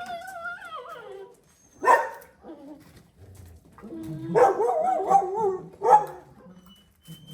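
Puppies whining, yipping and barking at play, in high, wavering cries with two sharp yelps.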